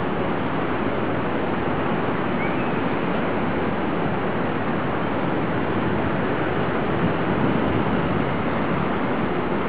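Steady rushing noise of distant city traffic, even throughout, swelling slightly about seven seconds in.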